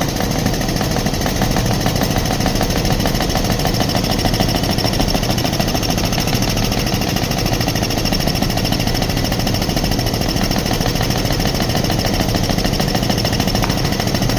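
Pneumatic air hammer hammering rapidly and steadily without a break, driving out a bushing.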